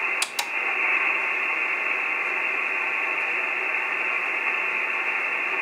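Receiver hiss from an Icom IC-9700 transceiver's speaker, tuned to the satellite downlink near 145.678 MHz with no station audible: a steady hiss with nothing above the receiver's passband. About a quarter second in, two quick clicks come with a brief dip in the hiss.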